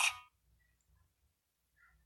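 The last instant of a TV station promo's music and voice cuts off sharply, followed by near silence with only a faint low hum.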